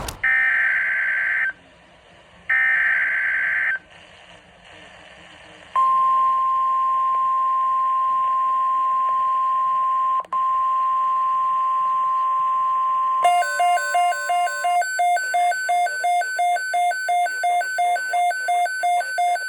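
NOAA Weather Radio alert: two screechy SAME data bursts, then the steady 1050 Hz warning alarm tone held for about nine seconds with a brief dropout. Near its end the weather radio's own alarm starts beeping rapidly, about three beeps a second.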